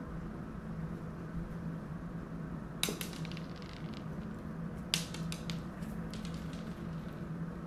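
Steady low room hum, with two short runs of sharp clicks and taps about three and five seconds in.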